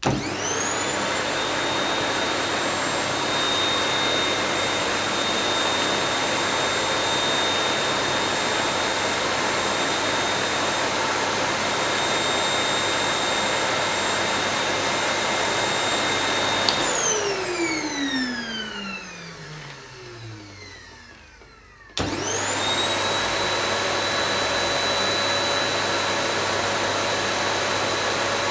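Vacuum cleaner switched on, its motor whine rising to speed, then running steadily with a rushing suction noise and a high whine. About 17 seconds in it is switched off and the whine falls away as the motor spins down. It is switched back on about 22 seconds in and spins up again to full speed.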